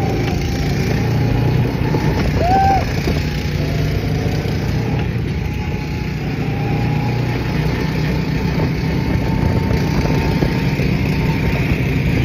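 Steady road and engine noise of a car on the move, heard from the seat of the open-top car. A brief chirp-like squeak about two and a half seconds in.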